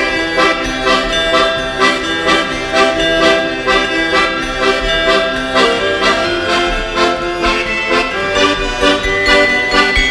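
Traditional folk music played on an accordion, with a steady beat.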